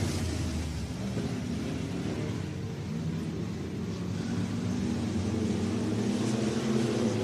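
A field of winged crate sprint cars' engines running together around a dirt oval, heard at a distance as a steady engine drone whose pitch rises and falls as the cars work through the corners and straights.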